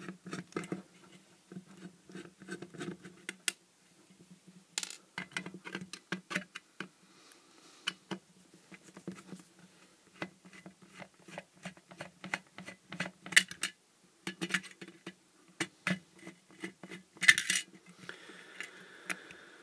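Screwdriver working the small screws out of the metal reflector of an LED floodlight: irregular metallic clicks, ticks and scrapes, with a few sharper clinks, over a faint steady hum.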